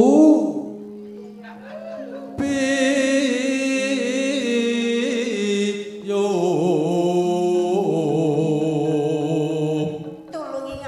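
Javanese singing into a microphone: long held notes with a wavering vibrato. It starts quieter, then comes in two loud phrases split by a short break about six seconds in.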